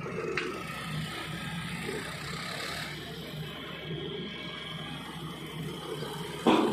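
Tipper truck's diesel engine running steadily with its dump bed raised, and one sharp thump near the end.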